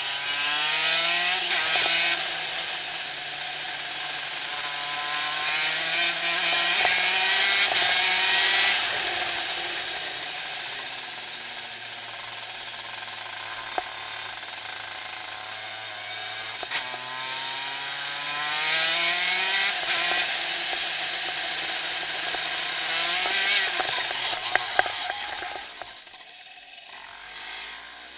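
Onboard sound of a shifter kart's two-stroke engine pulling through the gears. The pitch climbs and steps down at each upshift, then falls away under braking and downshifts before climbing again. It drops to a lower, quieter note near the end.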